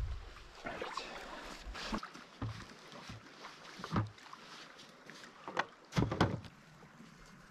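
Scattered knocks, scuffs and rustles of camping gear being handled on a sand beach: a plastic barrel is carried over and set down on the sand, with the loudest pair of thumps about six seconds in.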